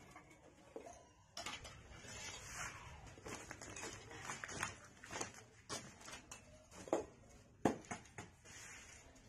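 Scattered clinks and knocks of steel dishes, tumblers and plates being handled and set down on a concrete floor, the loudest knocks about seven and eight seconds in.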